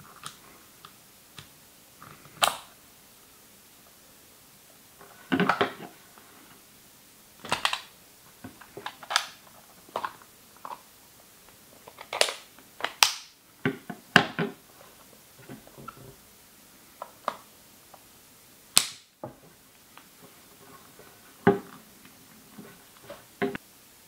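Clear plastic GoPro Hero2/Hero3 waterproof housings handled and their latches worked by hand: about a dozen sharp plastic clicks and snaps at irregular intervals, some with a duller knock.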